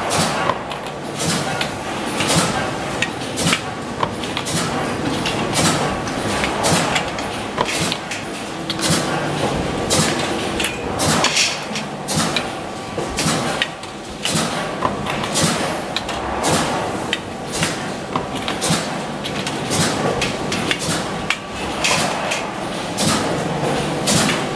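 Factory clatter: irregular sharp metallic knocks and clanks as stainless-steel wire dish-rack parts are handled and worked at a press brake, over a steady workshop hum.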